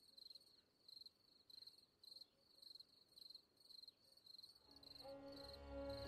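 Faint cricket chirping, a high chirp repeating evenly a few times a second. Soft music with held string tones fades in about two-thirds of the way through.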